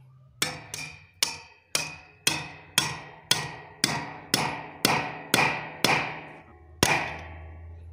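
Hammer blows on a 3/8-inch steel rebar, driving it into a hole drilled in concrete: about thirteen strikes, roughly two a second, each ringing briefly, the last after a short pause.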